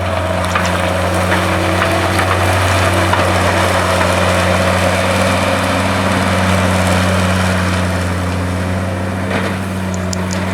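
John Deere 326D skid steer's diesel engine running steadily with a deep, even hum, easing slightly near the end.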